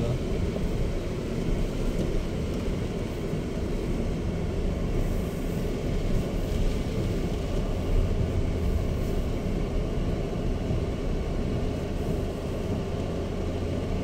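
Inside a Chery Tiggo 7 Pro driving on a rain-wet road: steady engine hum with tyre and road rumble. The low hum grows a little stronger about halfway through.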